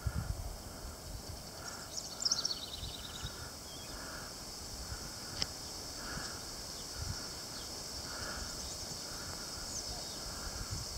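Outdoor birdsong and a steady high insect hum; about two seconds in, a songbird sings a quick trill of repeated notes, with a few short chirps later. Brief wind rumble on the microphone at the start.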